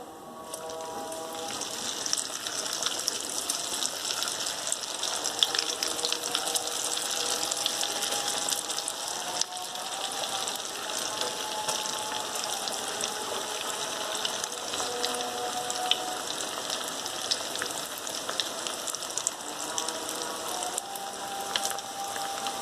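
Vermicelli-coated potato snacks deep-frying in hot oil: a steady, dense sizzle with fine crackling.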